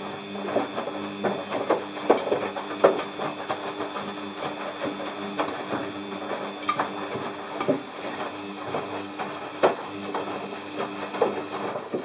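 Front-loading washing machine running a wash: a steady motor hum with irregular clunks and clicks as the laundry tumbles in the turning drum.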